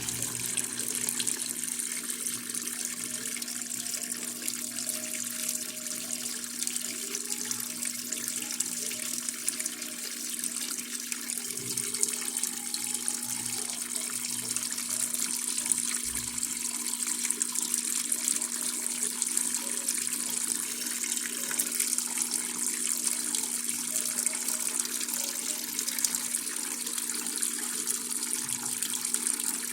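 Electrolux Turbo Limpeza LF10 top-loading washing machine taking in water: a steady rush of water pouring into the drum through the inlet, with a steady low hum underneath, as the machine adds more water at the user's command.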